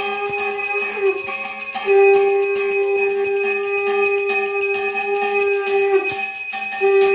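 Brass puja hand bell rung continuously, its clapper striking rapidly and the ringing sustained throughout. Under it a strong, steady low note is held, breaking off briefly about a second in and again near the end before starting again.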